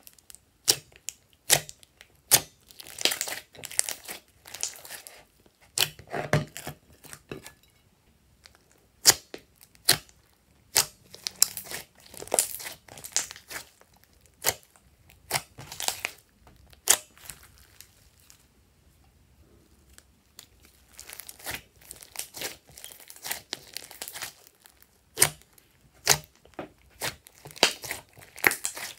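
Hands kneading, stretching and folding glossy slime, which gives irregular sticky pops and crackles as it pulls apart and presses together. The pops pause for a couple of seconds past the middle.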